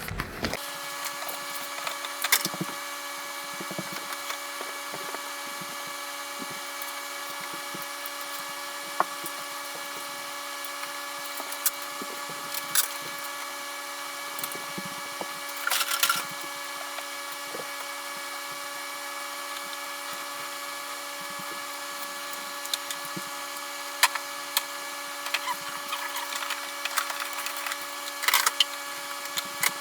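Scattered sharp clicks and short clatters of hand tools and plastic parts as the ignition coil packs are unclipped and pulled from a second-generation Toyota Prius engine. A steady hum of several fixed tones runs underneath.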